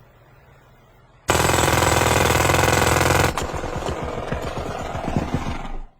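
A loud, rapid mechanical rattle starts suddenly about a second in and cuts off sharply two seconds later. Quieter, irregular clattering follows.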